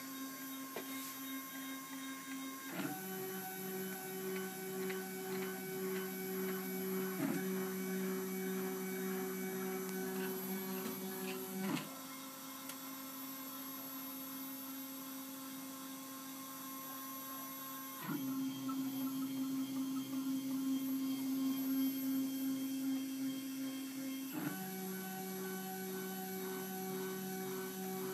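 Stepper motors of a homemade CNC milling machine moving a pen across paper, a steady motor hum and whine. The pitch and loudness switch abruptly every four to six seconds as the machine starts each new line of the drawing.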